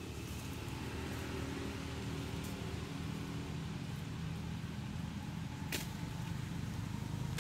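A steady low mechanical drone, like an engine running, with a single sharp click about six seconds in.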